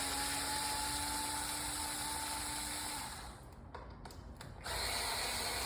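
Small cordless drill running, backing out a deadbolt's mounting screw with a steady whine. It stops about three seconds in and starts up again near the end.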